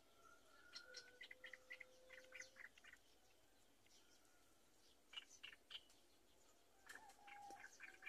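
Faint, short, high chirping calls in three bursts, which fit black-winged kite chicks begging as they are fed at the nest. A thin steady tone runs under the first couple of seconds.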